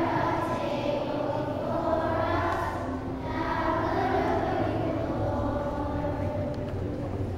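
A group of young girls singing together as a children's choir, long held notes sung in unison, over a low steady hum.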